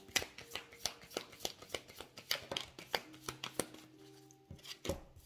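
Deck of tarot cards shuffled by hand: a quick run of soft card snaps, about four a second, a short pause, then a few more snaps near the end.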